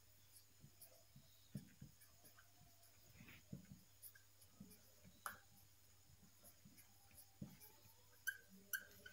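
Faint taps and scratches of a marker pen writing on a glass lightboard, with a few short squeaks of the tip near the end.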